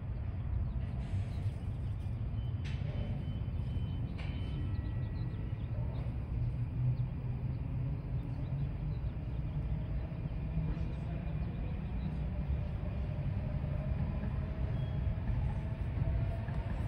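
Lynx Blue Line light rail train (Siemens S70) pulling away at a distance: a steady low rumble, with a faint whine that rises slowly in pitch through the second half as the train gathers speed.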